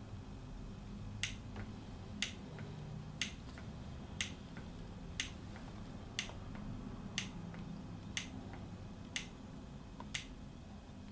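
Kima microfluidic pump running its wash cycle, clicking once a second, each sharp click followed by a fainter one about a third of a second later, as it pushes pulses of liquid through its tubing.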